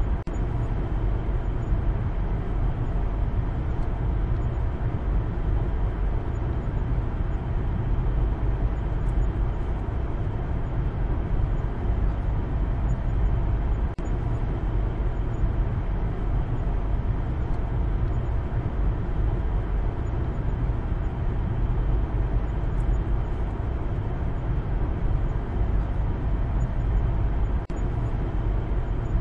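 Steady road and engine rumble inside the cabin of a Maruti Suzuki Baleno on the move, dipping briefly twice, about halfway and near the end.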